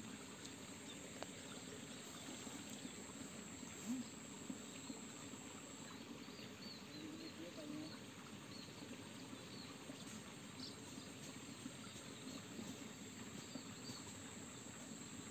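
Faint streamside ambience: a steady high-pitched insect drone, like a cricket, that stops about six seconds in, over a soft hiss of trickling water, with a few faint short chirps.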